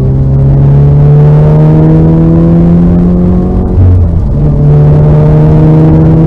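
Car engine pulling hard through the gears, its note climbing steadily. About four seconds in it breaks for an upshift, then picks up at a lower pitch and climbs again.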